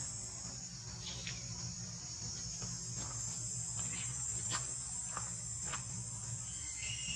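Steady high-pitched insect chorus, crickets or cicadas, droning without a break, over a low steady hum, with a few short faint chirps scattered through it.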